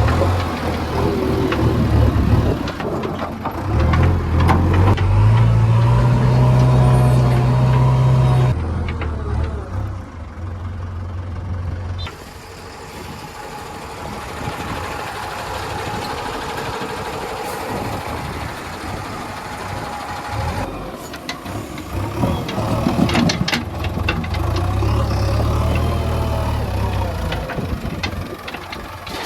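A JCB 3DX backhoe loader's diesel engine working. Its revs climb and hold for several seconds, drop back about ten seconds in, and rise again for a few seconds near the end.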